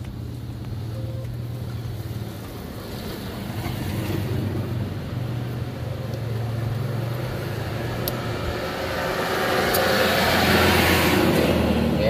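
Motor vehicle noise: a steady low engine hum, with a vehicle passing close by that grows louder to its peak about ten seconds in. Two faint clicks sound near the loudest part.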